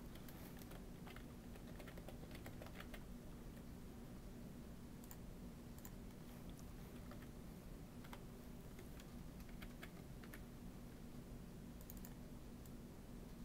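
Faint typing on a computer keyboard: scattered soft key clicks, irregularly spaced, over a low steady hum.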